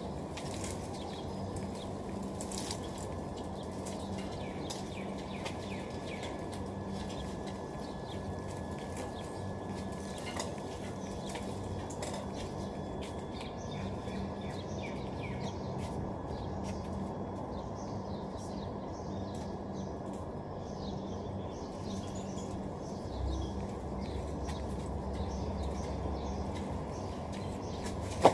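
Steady low background rumble with small birds chirping on and off in short, high calls.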